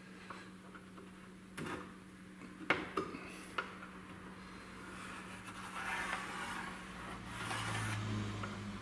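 A few light taps and rubs from hands and a wire gauge bent from brake line being held against a plastic motorcycle fender, over a steady low hum.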